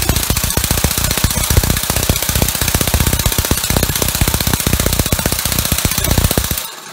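Six-cylinder eccentric compressed-air engine running on shop air: a loud rapid chatter of exhaust puffs over hissing air. The air cuts off near the end and a short hiss fades away.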